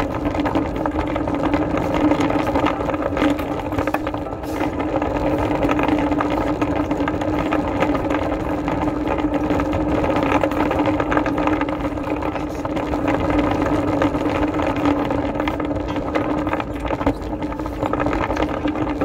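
Steady mechanical hum with one constant low tone over a rolling rumble, from a motorised machine moving along a tiled floor; it runs without a break.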